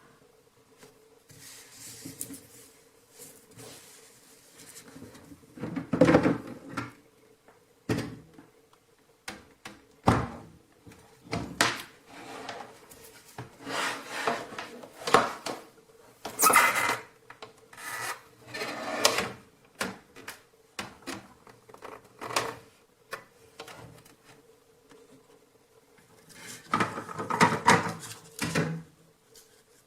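Objects being handled: irregular rubbing and scraping with sharp clicks and knocks in bursts, over a faint steady hum.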